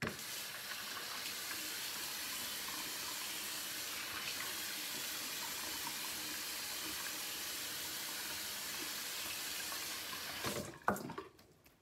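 Water from a two-handle bathroom sink faucet running steadily into the basin and splashing over hands and hair as the hair is wetted under the stream. The flow stops abruptly near the end, followed by a few short knocks and splashes.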